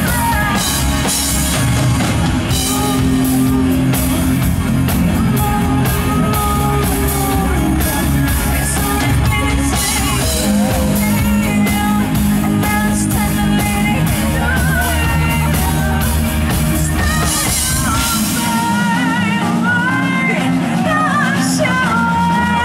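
Live rock band playing loudly on electric guitars and drum kit, with a singing voice carrying the melody. The deep bass drops out about three-quarters of the way through.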